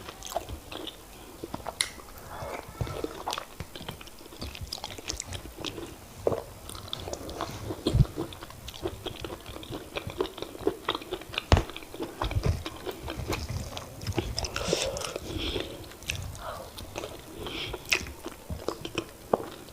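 Close-miked eating of semolina fufu and oha soup: wet, irregular chewing and mouth smacks with many small clicks. Twice there is a sharper, louder knock.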